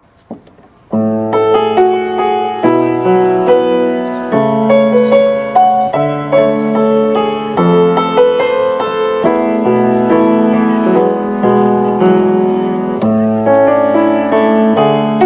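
Background piano music, a slow melody over held chords, starting about a second in.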